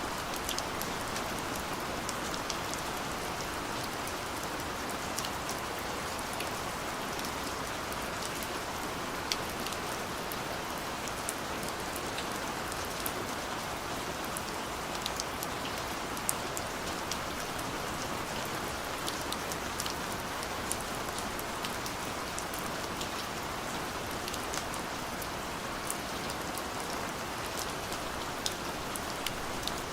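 Steady rain falling, an even hiss with many separate drops ticking sharply on a surface.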